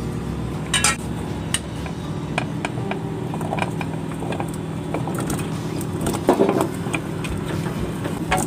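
A pot of water boiling with a steady low rumble as cubes of raw taro are tipped in from a container. Scattered clicks and knocks come from the container against the steel pot and the cubes dropping in, with a bigger splash about six seconds in.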